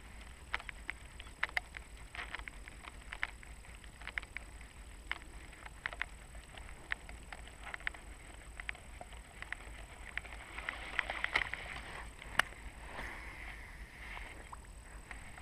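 Soft, irregular clicks and light water sounds, about one a second, as a walk-the-dog topwater lure is worked back across the water on a baitcasting rod and reel, with one sharper click near the end.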